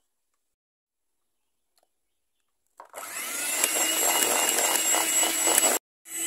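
Electric hand mixer starting up about three seconds in and running steadily with a whir, its beaters creaming butter and sugar in a steel bowl. The sound breaks off abruptly for a moment near the end and then starts again.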